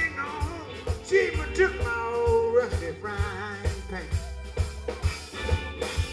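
Live band playing a song: a male lead voice singing over a steady drum-kit beat, with keyboard and electric guitar.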